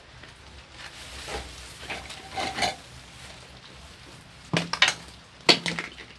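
Objects being handled: scraping and rustling, then a few sharp clattering knocks near the end, like hard utensils or containers set down against each other.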